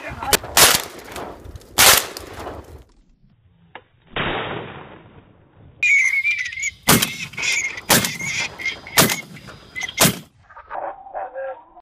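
Shotgun shots: three in the first two seconds, then after a lull four more about a second apart. A high, wavering whistle runs under the second group of shots.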